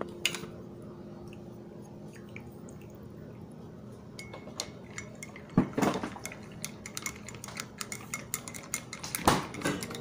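Coffee with creamer being stirred in a ceramic mug with a wooden stirrer, which clicks and taps against the mug's sides. The light clicks are scattered, with a couple of louder knocks about halfway through and near the end.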